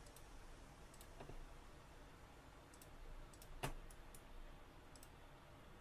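Faint, scattered computer mouse clicks, about half a dozen, over quiet room tone.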